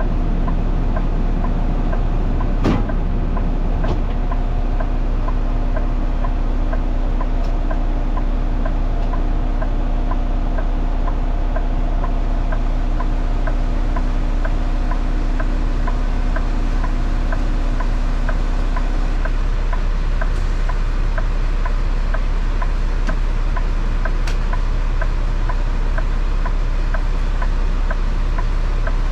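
Diesel semi-truck engine running steadily, heard from inside the cab, with a faint regular clicking about twice a second.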